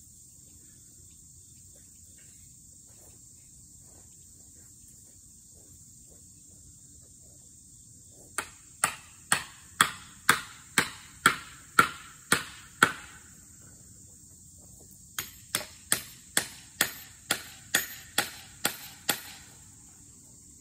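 Sledgehammer or axe poll striking a felling wedge driven into the cut at the base of a dead tree: a run of about ten sharp, ringing blows at roughly two a second starting about eight seconds in, a short pause, then a second run of about ten.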